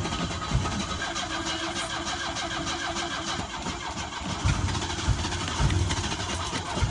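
Car engine cranking on its starter motor in a fast, steady rhythm without catching: the car won't start.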